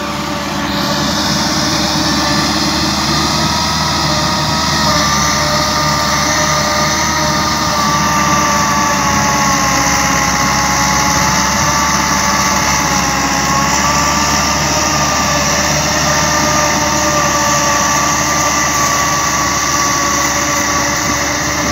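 Massey Ferguson 385 tractor's four-cylinder Perkins diesel engine running steadily under load, driving a 54-blade rotavator through the soil, with a steady whine over the engine note.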